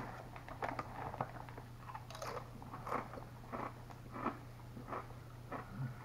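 Doritos Flamin' Hot Limón tortilla chips being chewed: a run of crisp crunches, roughly one every two-thirds of a second.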